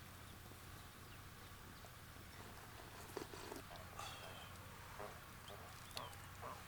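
Faint farmyard animal calls over a low steady hum: a few short, scattered calls and chirps, beginning about three seconds in.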